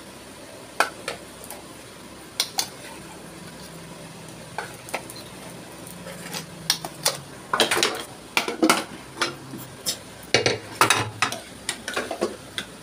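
A spoon scooping hot rice from an aluminium pot into stainless-steel lunch-box tins, with knocks and clinks of spoon, lids and metal containers. The knocks are scattered at first and come thick and fast in the second half.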